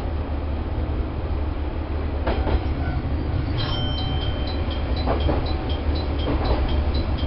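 Diesel railcar running over jointed track: a steady low rumble from the engine and wheels, with wheels clicking over rail joints a few times. About three and a half seconds in, a repeating high electronic two-tone beep starts, about three a second.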